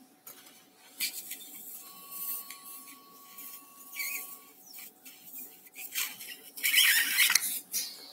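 Electrosurgical unit in use: the generator's steady activation tone sounds for about two and a half seconds while the cautery pencil works on tissue, with short bursts of hissing before, during and near the end.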